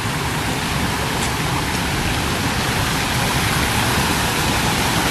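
Small garden waterfall: water pouring steadily in a continuous, even rush, flowing briskly.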